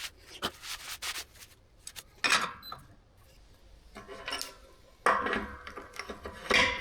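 Steel parts and a clamp being shifted and scraped about on a metal work surface: irregular rubbing and scraping with sharp knocks and clinks, busier and louder for the last couple of seconds.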